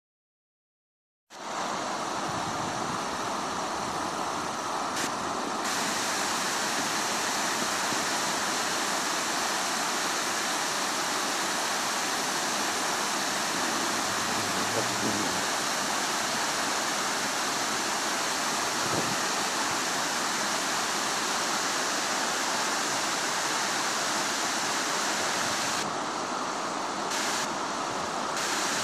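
River water rushing over rocks in shallow rapids, a steady rush that starts abruptly about a second in, after silence.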